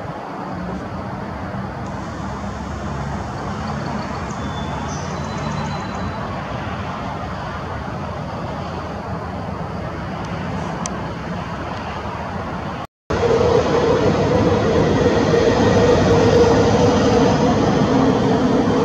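Steady outdoor engine rumble with no clear rhythm or single event. It cuts out for an instant about thirteen seconds in and comes back louder.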